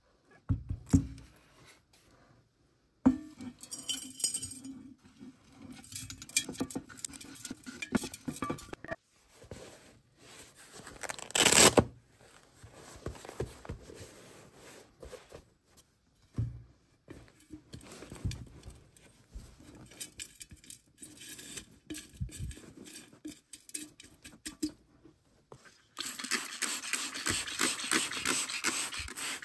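Hands working granular terrarium soil mix in a glass cylinder: irregular scraping, rustling and light clinks, with a short loud rustle about eleven seconds in and dense continuous scratching from about 26 seconds.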